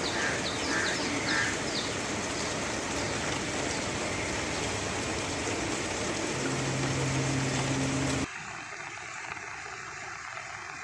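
Steady hiss of heavy rain, with birds calling in the first two seconds. A low steady hum joins for about two seconds, then the sound cuts off suddenly to a quieter wash of water.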